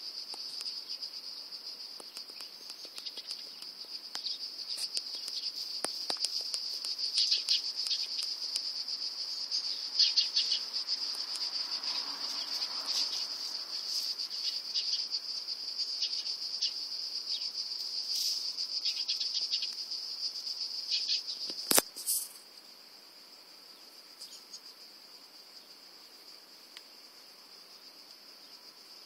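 Insects chirring outdoors in one steady, high-pitched drone. Short scratching clicks sound over it as a kitten's paws dig in dry dirt. About two-thirds of the way through there is one sharp click, and after it everything is quieter.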